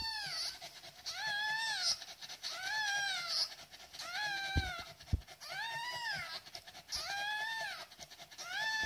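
A very young puppy crying: a string of about seven high whining cries, each rising then falling in pitch, about one every second or so. Two soft knocks come around the middle.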